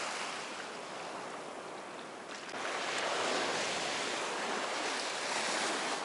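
Black Sea waves washing on the shore as a steady rushing noise, growing louder about two and a half seconds in.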